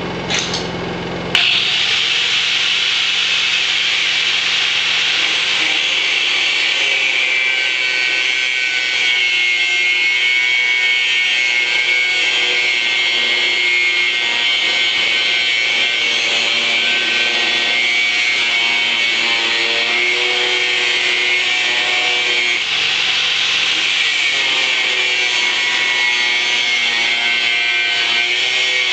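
Angle grinder with an abrasive cut-off disc cutting through metal tubing, a steady loud grinding whine whose pitch wavers as the disc bites. A few knocks come first, and the cutting starts about a second in.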